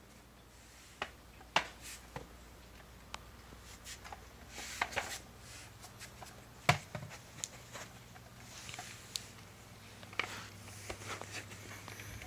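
Hamster exercise ball, a clear plastic ball with a hamster running inside, rolling across carpet: irregular light clicks, taps and rattles of the plastic, with two sharper knocks about a second and a half in and about two-thirds of the way through.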